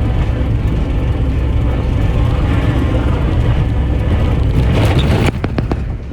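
Skid steer engine running steadily under load. A little past five seconds it drops in loudness, with a few sharp knocks.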